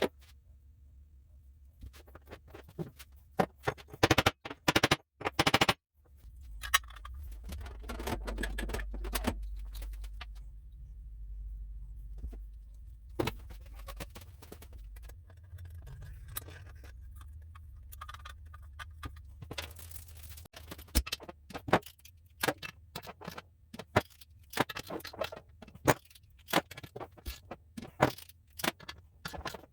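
Workshop handling noise: a string of irregular clicks, taps and scrapes of metal parts and hand tools, with a steady low hum for several seconds in the middle.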